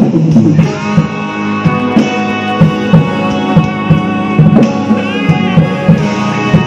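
Rock drum kit played along to a play-along backing track with electric guitar: steady kick and snare hits and cymbals under sustained guitar chords, with a bending guitar note about five seconds in.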